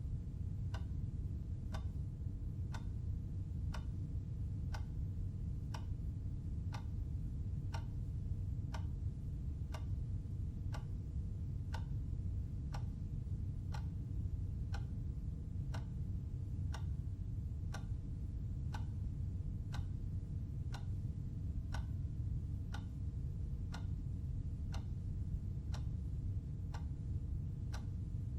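Clock ticking steadily, about one tick a second, over a low steady hum.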